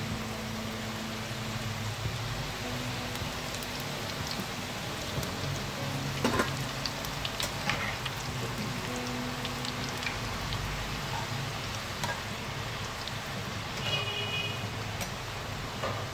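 Namak paray dough strips deep-frying in hot oil in a karahi: a steady sizzle. A few sharp clicks come from the stirring spoon knocking against the pan, about six and seven and a half seconds in.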